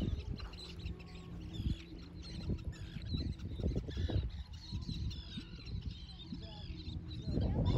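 A flock of gulls calling over the water: many short, overlapping high calls, with an uneven low rumble of wind on the microphone underneath.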